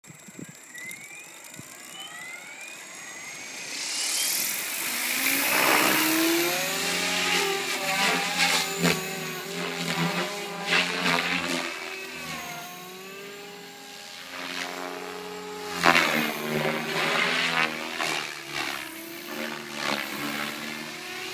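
SAB Goblin 500 electric RC helicopter spooling up, then flying, its motor and main rotor whining in a pitched tone that dips and rises again and again as it manoeuvres. Several louder swishes from the blades come through, the loudest about three-quarters of the way in.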